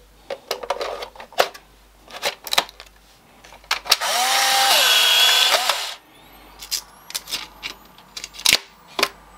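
Polaroid 600 camera's film-ejection motor whirring for about two seconds, driving out the film pack's dark slide after a fresh pack is loaded: the sign that the pack's battery powers the camera. Light plastic clicks and snaps of the camera being handled come before and after it.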